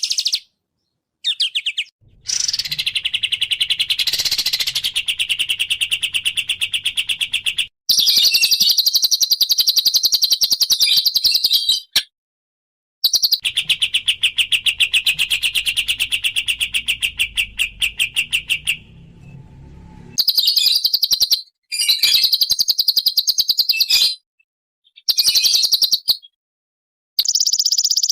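Small songbirds singing very fast, rapidly repeated chirping trills, in several bursts a few seconds long separated by sudden silences where the recordings are spliced together.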